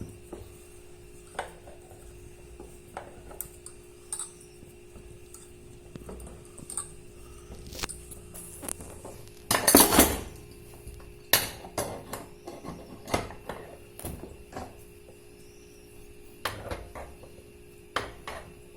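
Metal clinks and knocks from tools and parts as a washing machine's agitator mechanism is worked free with a puller, with a louder clatter about ten seconds in. A steady low hum runs underneath.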